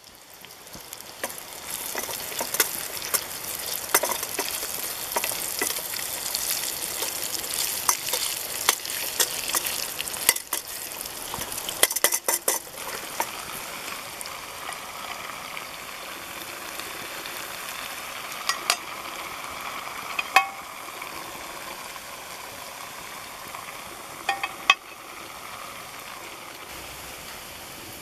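Meat sizzling as it fries in metal camp pots over a campfire, a dense crackling hiss that eases off about halfway through. Several sharp metallic clinks ring out in the second half.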